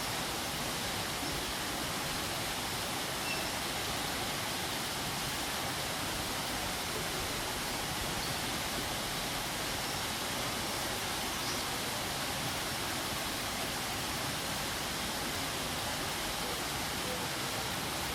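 Waterfall: a steady, even rush of falling water, unchanging in level.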